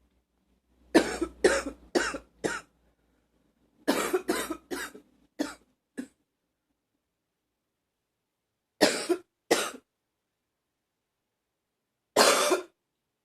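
A woman's short, barking coughs in fits: four quick coughs, then five, then two, and one longer cough near the end.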